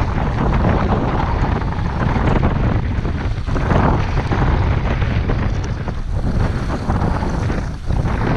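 Wind rushing over the microphone of a skier gliding downhill, over the skis sliding on groomed snow; loud and steady, with a few brief dips.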